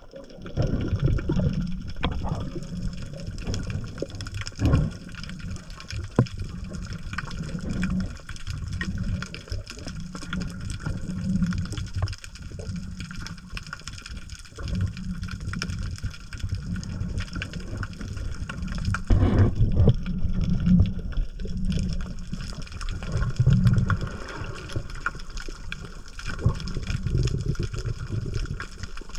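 Seawater washing and sloshing, with an uneven low rumble that swells and eases every second or so.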